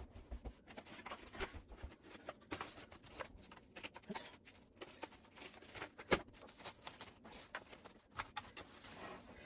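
Faint scattered crinkles and light clicks of plastic wrap being pulled and pressed over a dish.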